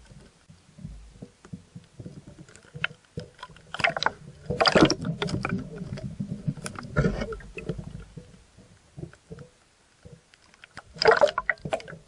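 Muffled water sloshing and gurgling heard through a submerged underwater camera, with a few loud rushes of splashing, the strongest about five seconds in and near the end.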